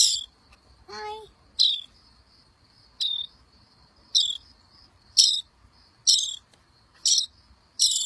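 Baby bird chirping: short, high-pitched falling chirps repeated about once a second, the begging calls of a hand-raised nestling.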